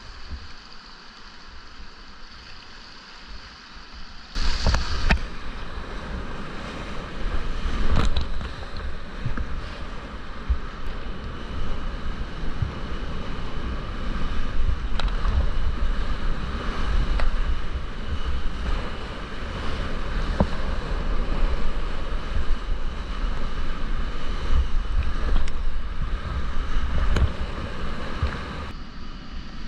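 Whitewater rapids of the Snake River at high flow, heard from a kayak in the waves, with splashing and wind buffeting the microphone. It is quieter for about the first four seconds, then suddenly much louder as the kayak drops into the rapid, with sharp splashes now and then.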